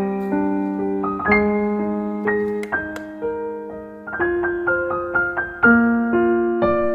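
A solo piano tune used as an alarm-clock tone: single melody notes struck one after another over held lower notes, each note fading after it is struck.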